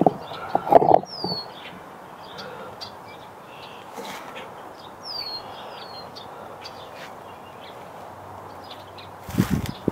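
Small birds chirping, a few short falling chirps, over a quiet outdoor background. A burst of knocks and rustling at the start comes from the camera being handled and set in place, and a few low thumps come near the end.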